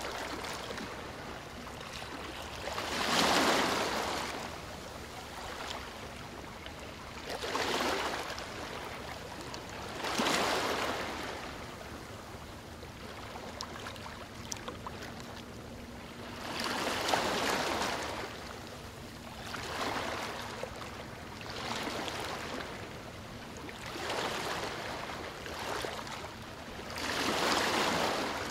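Small sea waves lapping and sloshing close by, the wash swelling and fading every few seconds.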